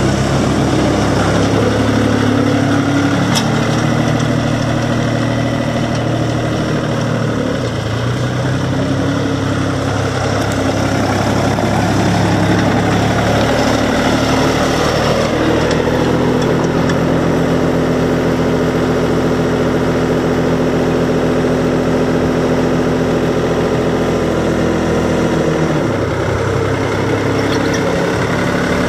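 Diesel engine of a 2002 New Holland TN55 loader tractor running steadily as the tractor drives, its note shifting about a quarter of the way in and again near the end.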